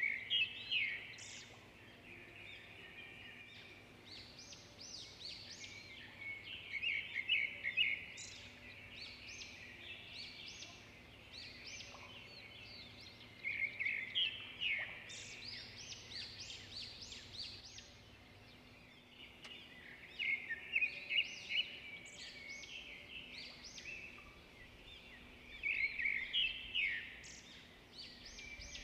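Small birds chirping and twittering in quick high bursts that come back every six or seven seconds, over a faint steady hum.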